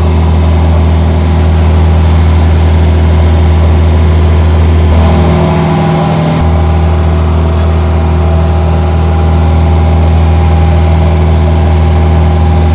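Engine running with a loud, steady low drone, its tone shifting briefly about five seconds in.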